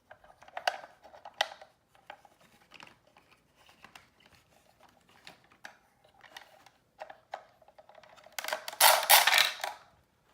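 Small wooden clicks and knocks of a wooden toy sawmill set being worked by hand, with a loud rattling clatter of wooden pieces lasting about a second and a half near the end.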